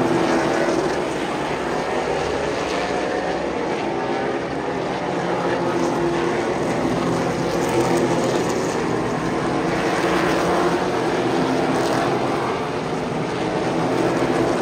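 Super late model stock cars' V8 engines running at speed around the oval, a steady, loud engine sound with no pauses.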